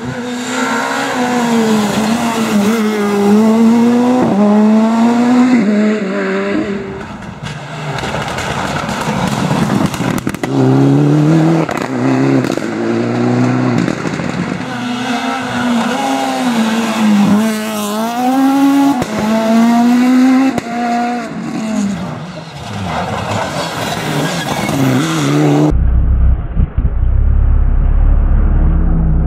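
Rally car engines revving hard at speed, the pitch climbing and dropping again and again through gear changes and lifts off the throttle. About three-quarters of the way through the sound turns duller, with a heavy low rumble underneath.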